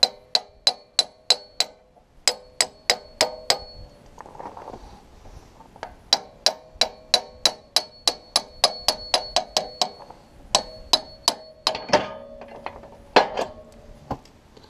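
Hammer striking a steel drift punch to drive out a loader cylinder's pivot pin: steady blows about three a second, each with a ringing metallic note. The blows come in two runs with a pause between, then a few louder, uneven hits near the end.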